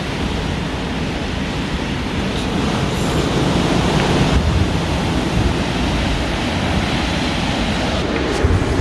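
Strong snowstorm wind blowing on the microphone: a steady, loud rush of noise that swells a little about four seconds in.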